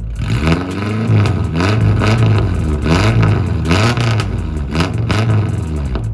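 Nissan 240SX exhaust, a 4-inch ISR system fitted with an ISR high-flow catalytic converter, revved over and over in quick blips about once a second, with a deep tone.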